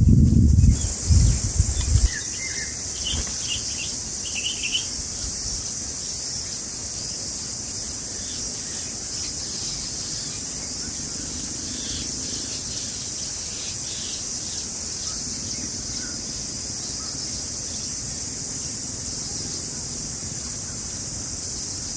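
Steady high-pitched insect chorus, with a faint pulse riding on it about once a second. A few short bird chirps come in the first few seconds, and a low rumbling rustle fills the first two seconds.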